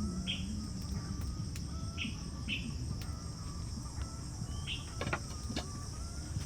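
Forest ambience: insects keep up a steady high drone, with four short chirps scattered through and a couple of sharp clicks about five seconds in.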